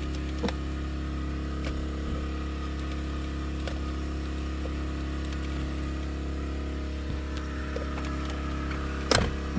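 Car engine idling steadily, with a few light clicks and one sharper clatter near the end as the Chrysler 200's shifter assembly is handled.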